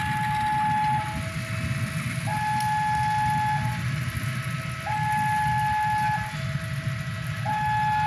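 Two-tone hi-lo siren alternating between a higher and a lower tone, each held about a second and a quarter, over a low engine rumble.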